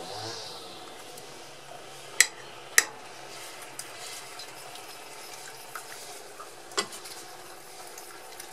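A spoon stirring sauce in a stainless steel pot over a steady hiss, with sharp metal clinks of the spoon against the pot twice about two to three seconds in and once more near seven seconds.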